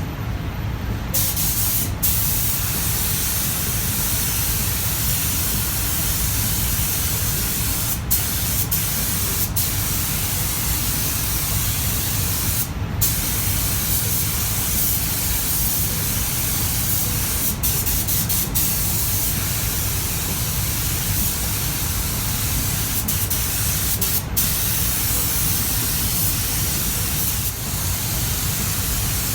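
Compressed-air spray gun spraying steadily, a continuous hiss broken by a few brief pauses, the longest just after the start and about halfway through.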